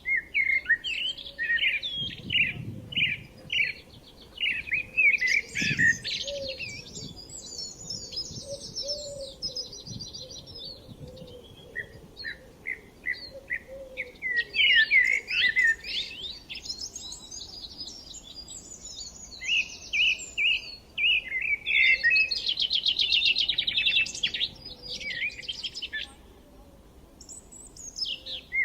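Songbirds singing: a run of quick separate chirps rising into fast, high trills, the whole phrase coming back about every twelve seconds with short pauses between.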